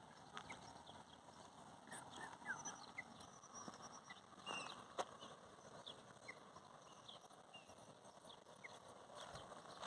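Faint short bird chirps scattered throughout, with a few sharp knocks, the loudest about five seconds in.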